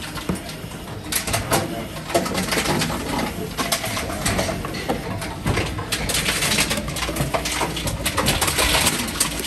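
Envipco bottle-return (reverse vending) machine taking in plastic bottles one after another, running as each bottle is drawn in and counted. Plastic bottles crinkle and clatter with many sharp clicks and crackles as they are handled and fed into the opening.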